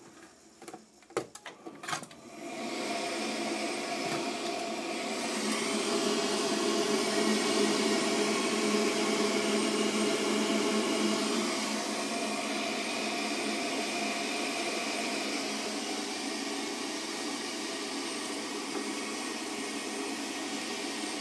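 A few clicks of the Heatline boiler's control knob being turned, then about two seconds in the boiler's fan starts with a steady rushing hum. It grows a little louder for a few seconds in the middle and carries on running while the boiler goes to its F4 lockout.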